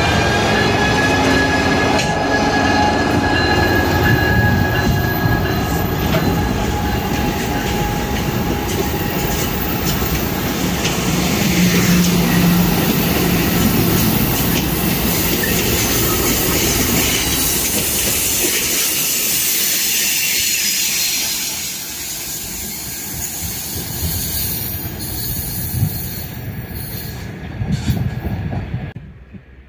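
Passenger train passing close behind a Siemens Charger diesel-electric locomotive, the engine's drone first, then coaches rolling by with wheel noise and high wheel squeal. The sound drops about two-thirds of the way through and fades out near the end as the train pulls away.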